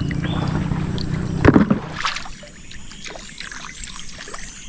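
Sounds in a small boat on a river: a low steady hum for the first two seconds, a knock about a second and a half in, then light splashing and trickling water.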